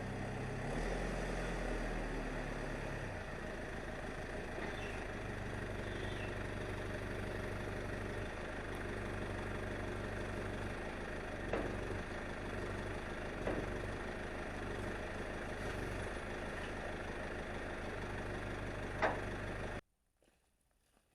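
Engine running steadily, its note shifting in the first few seconds, with a few sharp knocks. The sound cuts off abruptly shortly before the end.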